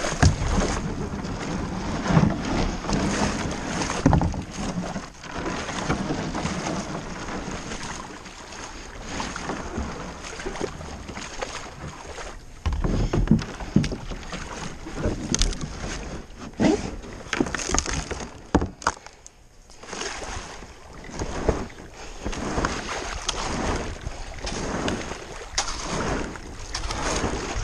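Kayak paddling: irregular splashes of the paddle blades dipping into the water and water washing along the plastic hull, with a short lull about two-thirds of the way through.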